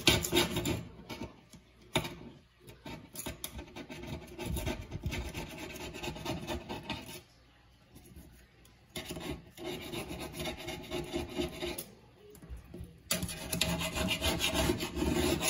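Knife blade scraping old silicone caulk out of the seam between a stainless steel sink rim and a granite countertop, in runs of quick back-and-forth strokes broken by short pauses about halfway and near the end. This is the stripping of the failed seal before the leaking sink is recaulked.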